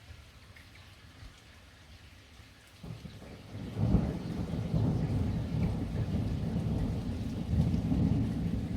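Thunder over steady rain. After a few seconds of faint rainfall, a rumble begins about three seconds in, peaks sharply a second later and keeps rolling loud and deep.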